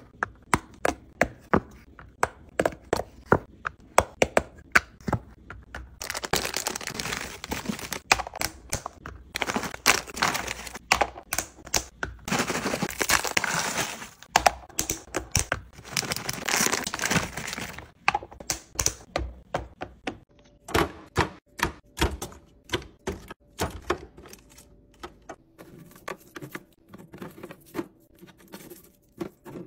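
Plastic and silicone food containers clicked and tapped on a countertop, then crackers poured rattling into a container in several long pours. After that come more sharp taps and clicks as snack cups are set into clear plastic fridge bins, with a faint steady hum joining about twenty seconds in.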